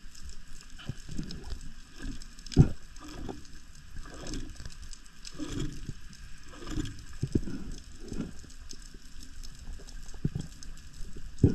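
Underwater sound from a camera carried by a spearfishing diver swimming over the seabed: irregular low whooshes of water moving past the housing, with a sharp knock about two and a half seconds in and another near the end.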